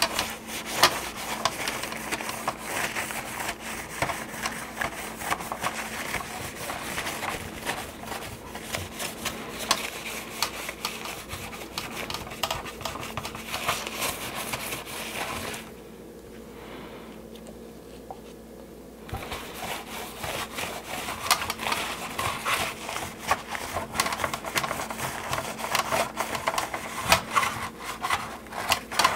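Paper napkin rubbing baby oil over the hard plastic of a 1983 GI Joe Skystriker toy jet: continuous scuffing wiping strokes with small clicks and crinkles, stopping for about three seconds a little past halfway, then starting again.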